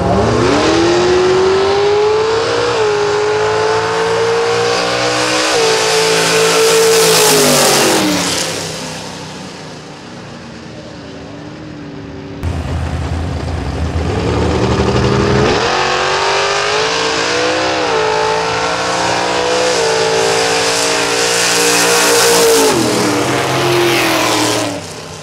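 Vintage gasser drag cars making full-throttle passes: the engines' pitch climbs through each gear and drops back at every shift as the cars pull away down the strip. There are two runs, the first fading out about 8 s in and the second starting about 15 s in, with the same climbing pitch and shifts.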